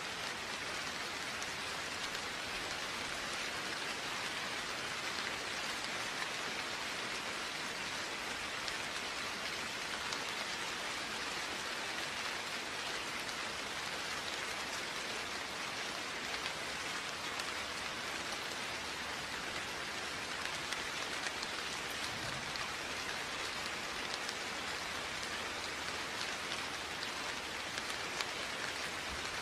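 Steady rain falling and pattering on surfaces: an even hiss full of fine drop ticks, with no thunder.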